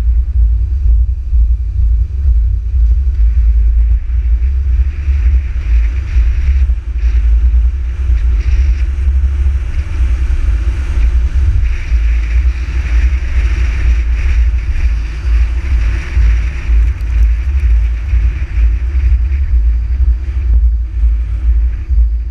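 Road noise from a car driving on wet asphalt, heard through a bonnet-mounted camera's microphone: a steady low wind and engine rumble with a hiss of tyres on the wet road that swells through the middle and then eases.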